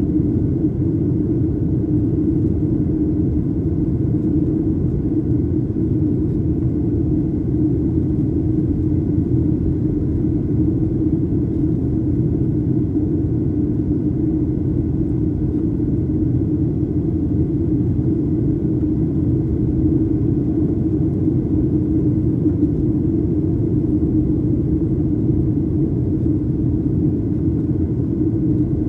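Steady cabin noise inside a Boeing 737-800 on approach: its CFM56-7B turbofan engines and the airflow over the fuselage make an even, unbroken rumble, with faint steady whine tones above it.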